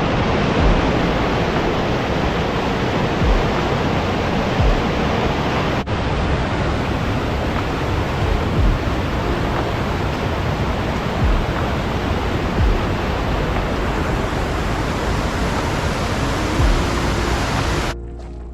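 Loud, steady rush of running water, with a few faint low thumps and a brief break about six seconds in.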